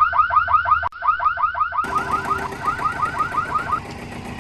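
Rapidly repeating electronic alarm chirp, about seven chirps a second, with a brief break about a second in. It stops near the end as a steady background noise carries on.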